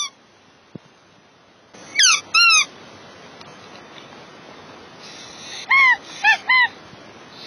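Rubber squeaky dog toys shaped like chickens and ducks being squeezed by hand: two squeaks about two seconds in, then three quicker squeaks near six seconds, each bending in pitch, over a faint steady hiss.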